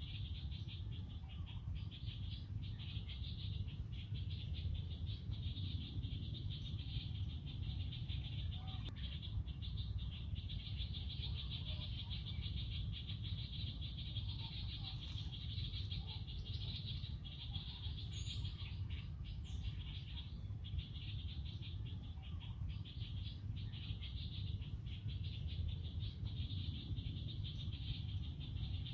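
Steady, continuous chorus of forest insects, a high even trill without a break, over a low rumble, with a couple of brief faint chirps.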